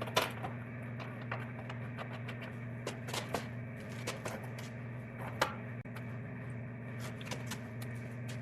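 Scattered light clicks and taps over a steady low hum, the sharpest click just after the start and another about five seconds in.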